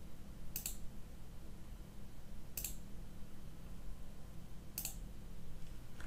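Three soft computer mouse clicks, about two seconds apart, over a steady low hum.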